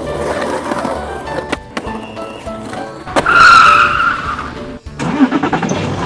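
Upbeat background music with cartoon vehicle sound effects; about three seconds in, a loud, high tyre-screech effect lasts just over a second.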